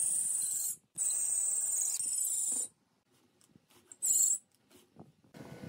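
Cordless drill running in three short bursts with a high-pitched motor whine; the second run is the longest, and the last is brief.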